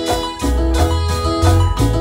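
Live church worship band playing an upbeat instrumental passage, with a heavy bass line and a steady beat.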